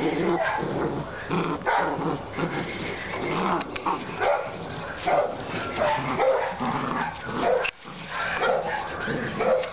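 Seven-week-old Dutch Shepherd puppy yipping and barking as it bites and tugs at a jute bite pillow.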